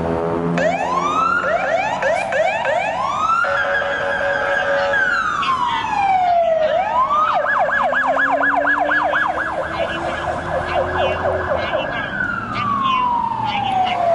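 Fire apparatus sirens responding to a call. Short rising whoops repeat in the first few seconds, then a long rise and fall. About seven seconds in, a fast yelp starts at about four cycles a second, and it winds down in a long falling sweep near the end.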